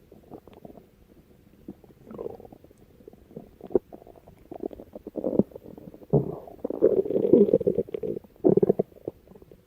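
A person's stomach growling and gurgling in irregular rumbles, faint at first and louder and more frequent from about halfway through.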